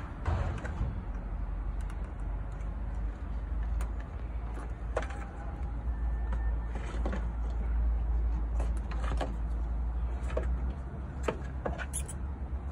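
Clear plastic tubing and a small fluid-extractor pump being handled, giving scattered clicks and rustles over a steady low rumble.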